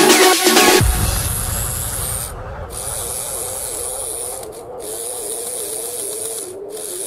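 Small DC motor driving a train of plastic gears in an ice-cream-stick frame: a steady whir with the rasp of the plastic teeth meshing, its pitch wavering slightly as it runs.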